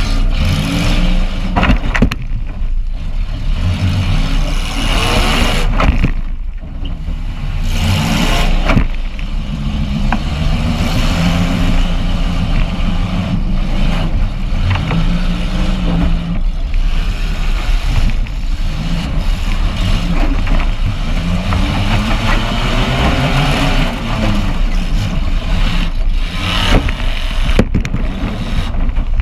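A demolition derby car's engine is heard from inside its stripped cabin, revving up and down repeatedly as it drives. Several sharp bangs of impacts cut in, a few of them close together near the end.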